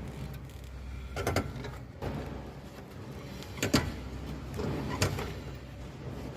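A car's CV drive shaft rubbing against the lower control arm mounting, with a few separate scraping strokes over a steady low hum. The rub is the fault that is making the noise, not a worn CV joint.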